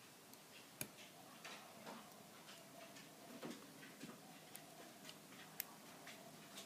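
Faint, irregular clicks and scrapes of a lock pick and tension wrench working the pins of an all-brass American Lock round padlock, with two sharper clicks, about a second in and again near the end.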